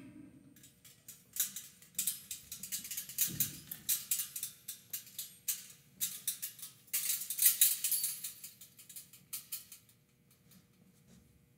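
Small silver bells on a Torah scroll's crown jingling and clinking in irregular bursts as the scroll is carried and set back in the ark, with a soft thump about three seconds in. The jingling stops a couple of seconds before the end.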